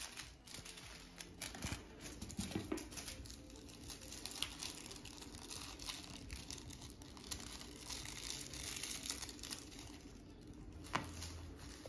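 Faint rustling and scratching as a cat rolls on a woven rug, grabbing, biting and kicking a small toy, with scattered soft clicks and scuffs.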